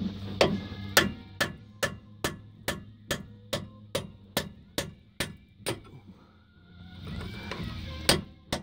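Hammer striking a socket extension used as a punch, metal on metal, to drive a stuck retaining key out of a rust-caked rear disc brake caliper on a P30 Chevy chassis: about thirteen sharp, evenly spaced blows a little over two a second, a pause, then two more blows near the end as the key comes free.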